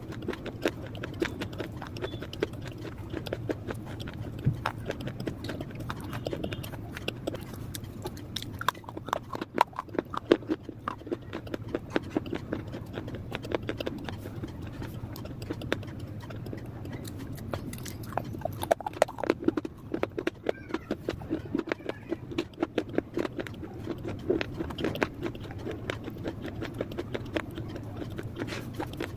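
Mixed dry clay being bitten and chewed close to the microphone: a dense run of sharp crunches and crackles, louder in clusters about a third and two-thirds of the way through.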